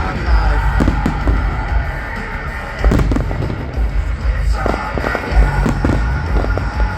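Aerial fireworks bursting in quick succession, with deep booms and sharper cracks, over music from loudspeakers.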